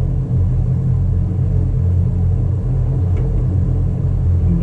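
Tow boat's engine running with a steady low rumble.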